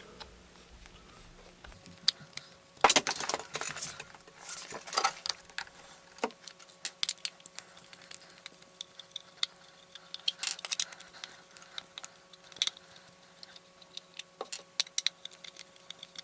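Small screws being undone from a plastic robot power-base housing with a screwdriver: irregular light clicks and small metallic clinks, with a few louder scraping bursts in the first five seconds.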